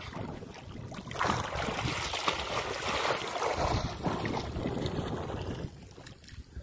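Water splashing and churning as a swimmer in fins kicks at the surface and dives under. It swells about a second in and eases off after about four seconds.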